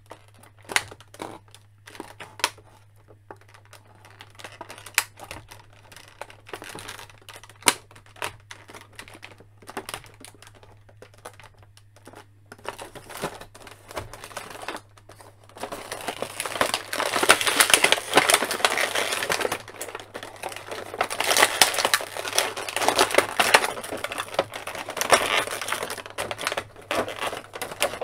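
Scattered small clicks and taps from working the figure loose, then, from a little past halfway, the clear plastic blister tray of the action-figure packaging crinkling and crackling loudly as the figure is pulled free of it.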